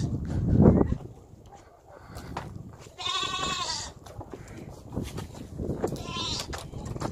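Goats bleating: one long, wavering bleat about three seconds in, and a shorter one near the end. A loud low rumble fills the first second.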